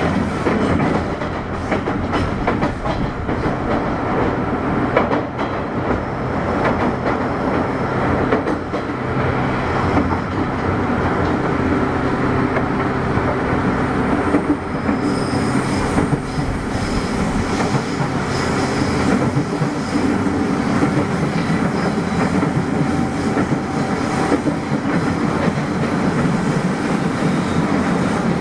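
Running sound inside the motor car of a chopper-controlled JR West 201 series electric train: wheels clack over rail joints beneath a steady hum of drive tones. Higher whistling tones join about halfway through.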